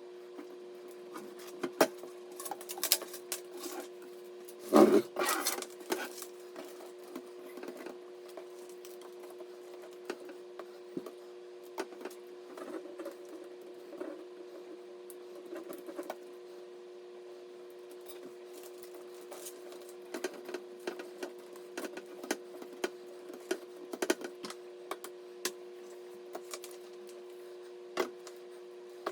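Scattered clicks, taps and light knocks of computer parts and tools being handled during a PC assembly, with a louder burst of knocking about five seconds in, over a steady low hum.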